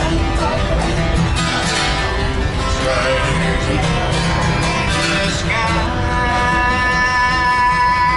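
Country music with acoustic guitar strumming and a singer, ending in a long held note over the last few seconds.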